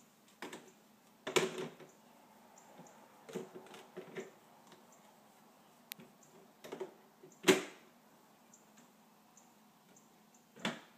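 Plastic toy kitchen being handled by a small child: irregular knocks and clatters of hard plastic parts, the loudest about a second and a half in and again past seven seconds, over a faint steady hum.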